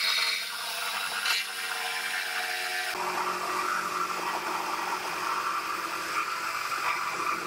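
Cordless reciprocating saw running steadily as its blade cuts through the steel upper frame rail of a Dodge Ram at the sectioning line. The sound changes character about three seconds in and stops near the end as the cut finishes.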